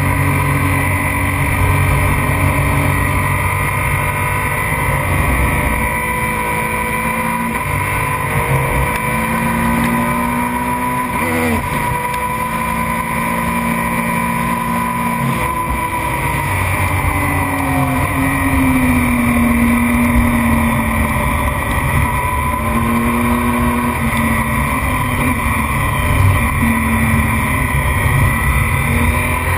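Racing motorcycle engine heard from onboard at track speed, its revs climbing and dropping as the rider shifts gears and backs off for corners, over heavy wind rush on the microphone.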